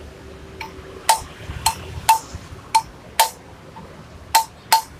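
Hammer blows on an aluminium tube used as a drift, driving a new sprocket-hub bush into a Honda Tiger's rear wheel hub: about eight sharp metallic taps at uneven intervals, each with a brief ringing tone.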